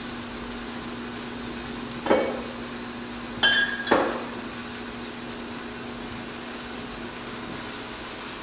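Chicken breasts sizzling steadily in a closed contact grill (combination grill and panini press), under a low steady hum. About two seconds in and again near four seconds there are knocks, with a bright glass clink between them, as bottles are set down on a shelf.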